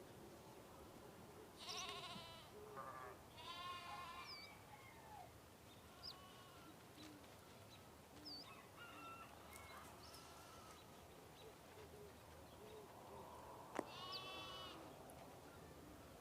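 Bleating livestock: a few wavering, quavering bleats, the last one near the end preceded by a sharp click, with a few short high bird chirps in between.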